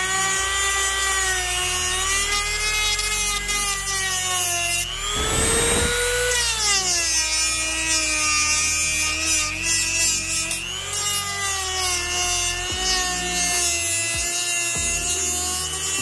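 Dremel rotary tool whining as its grinding bit works down the mounting ears of a C6 Corvette ZR1 brake caliper to make them flat. The whine wavers in pitch as the bit loads and unloads. About five seconds in it rises with a burst of grinding noise, then drops lower for a few seconds.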